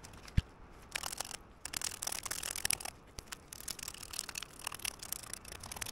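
Knife blade scraping the scales off a common bream (Brasse) in quick, uneven rasping strokes from about a second in, with a single dull thump just before.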